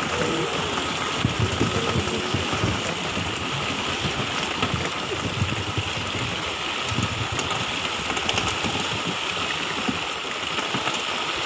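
A dense school of fish thrashing in a pursed ring net beside the boat: a continuous rushing splash with many small irregular slaps on the water.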